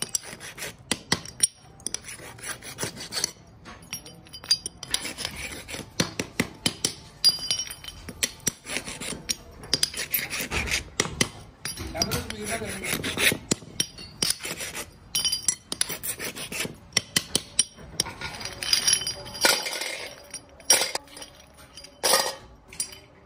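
Hand file rasping over the edges of cast motorcycle brake shoes to clean off casting flash, in short strokes broken by sharp metallic clinks and knocks as the shoes strike a brick and each other. Near the end, shoes clatter into a metal pan.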